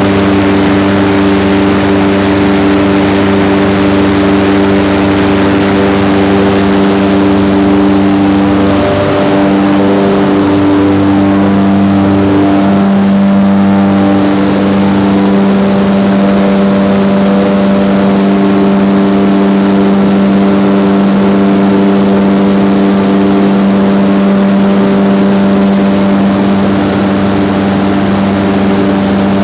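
Coal mine main mechanical ventilator, a large axial ventilation fan, running with a loud steady drone. Under the rush of air there is a hum of several steady tones, which waver briefly about a third of the way through.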